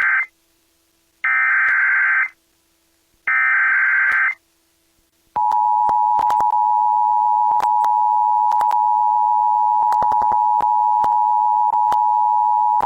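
Emergency Alert System SAME header: warbling digital data bursts about a second long, the first ending just as the clip begins, then two more a second apart. About five seconds in, the steady two-tone EAS attention signal starts and holds, heard over AM radio with crackles of static through it.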